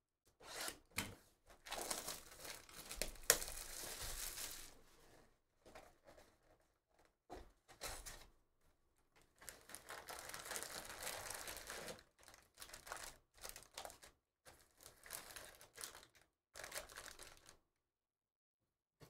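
Plastic wrap torn and crumpled off a cardboard trading-card box, then the box opened and the foil-wrapped packs pulled out and stacked: bursts of crinkling and tearing with a few light knocks and short pauses between.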